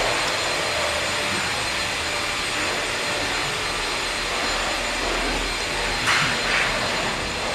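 Steady rushing machine noise from the house construction site next door, with a brief hiss about six seconds in.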